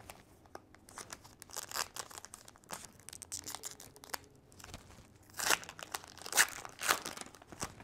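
A baseball card pack's wrapper being crinkled and torn open by hand: small crackles throughout, with a few louder rips in the last couple of seconds.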